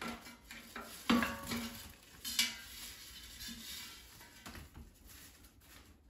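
Kitchen utensils scraping and clinking against an air fryer basket as roasted fingerling potatoes are slid out onto a plate. There are a few separate clinks, the sharpest about a second in and just after two seconds.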